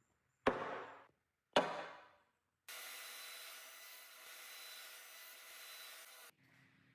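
Two sharp knocks on wood about a second apart, each ringing briefly, then a power tool working wood with a steady whirring hiss for about three and a half seconds before cutting off abruptly.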